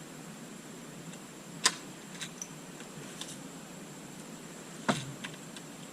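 Sharp clicks and knocks of latch hardware being fitted to a cage door, with two loud ones, one about a second and a half in and one near the end, and fainter clicks between.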